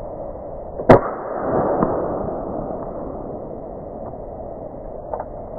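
An air rifle fires a single sharp shot about a second in, followed by a short swell of rushing noise that fades over the next second or two.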